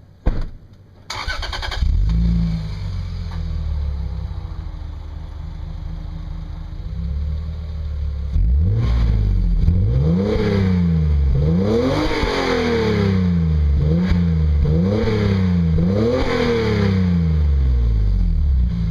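Lexus IS300's 3.0-litre straight-six, breathing through an HKS Hi-Power axle-back exhaust, cranks on the starter about a second in, catches and settles into a fast idle. After about eight seconds it is blipped up and down about six times in a row.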